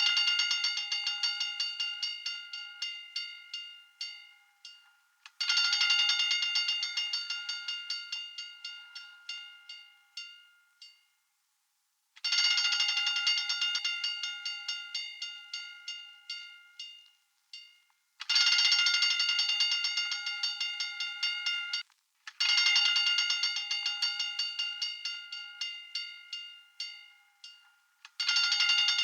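Hand-cranked fire alarm bell rung in repeated bursts of rapid clapper strikes. Each burst starts loud, then fades and slows before a short gap and a fresh burst, about six times.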